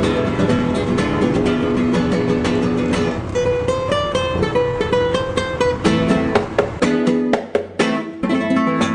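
Upbeat instrumental background music on plucked strings. The bass drops out about seven seconds in, leaving a few separate strums before the music ends abruptly.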